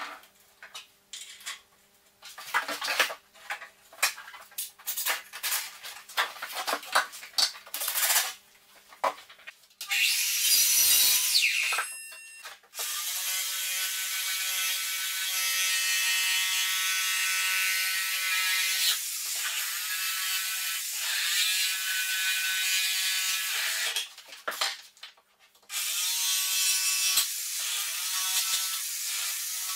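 Jigsaw cutting a length of skirting board, running steadily for long stretches with a short stop about three-quarters of the way through. For the first ten seconds there are only scattered sharp clicks and knocks of handling, then a brief loud burst before the saw settles into its cut.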